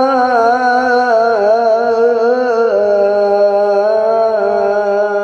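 Man's voice chanting Quran recitation (tilawah) through a microphone and PA, drawing out the word 'hatta' in one long melismatic note. The note wavers in ornaments, then steps down to a lower pitch about halfway through and is held. The voice is hoarse and forced, which the reciter puts down to his voice being unwell.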